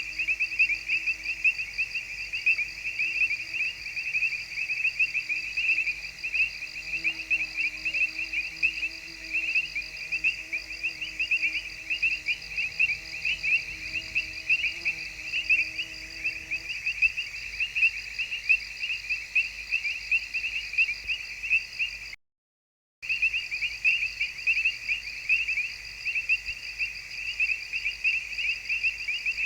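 A dense, steady chorus of crickets chirring together, with a faint steady hum underneath that stops a little past halfway. The sound cuts out completely for under a second about three-quarters of the way through.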